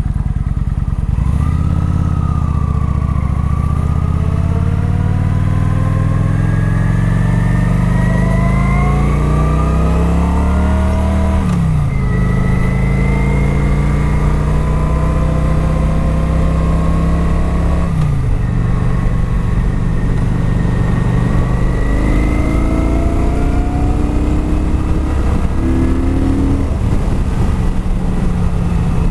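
Stock exhaust of a Kawasaki Vulcan 900 Classic's V-twin, heard from inside the rider's helmet, accelerating through the gears. The engine note climbs steadily, drops at an upshift about twelve seconds in and again about eighteen seconds in, then settles into a steady cruise.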